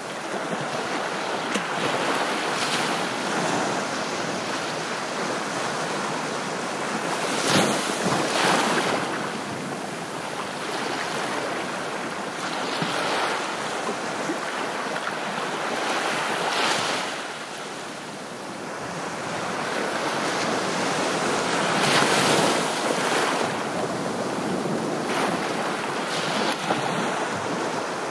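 Ocean surf: a steady wash of waves that swells and breaks every few seconds.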